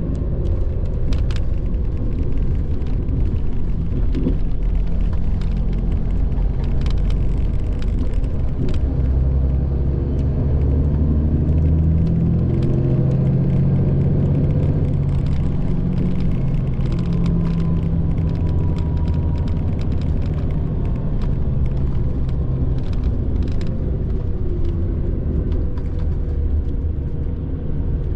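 Mitsubishi Fuso Aero Ace coach's diesel engine and road noise heard inside the cabin: a steady low rumble. The engine note grows louder for several seconds in the middle, with scattered light clicks and rattles.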